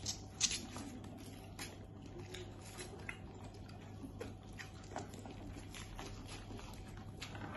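Faint sounds of people eating crab and shrimp by hand: soft chewing and finger-sucking, with scattered small clicks of shell being picked apart, the sharpest about half a second in, over a low steady hum.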